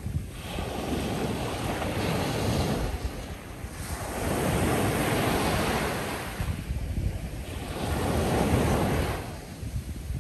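Ocean surf breaking on a beach shoreline: three waves surge and draw back, about one every three to four seconds.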